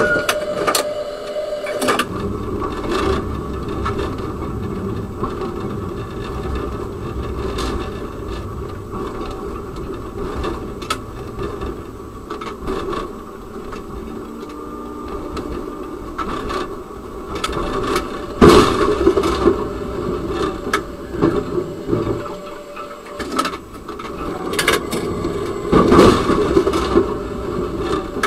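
Tram running along its rails, heard from inside the driver's cab: a steady rumble and rattle, with sharp loud knocks about eighteen and twenty-six seconds in.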